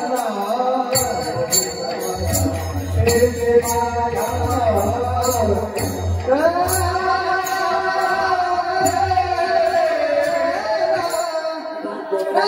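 A male devotional singer sings a Marathi abhang in a very high voice. He glides between notes and then holds one long high note for several seconds, accompanied by small hand cymbals (taal) struck in a steady rhythm.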